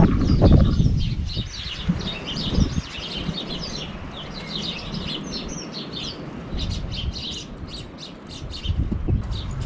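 Small songbirds chirping and twittering, a dense run of short, quick chirps going on throughout. A low rumble is loudest at the start and comes back near the end.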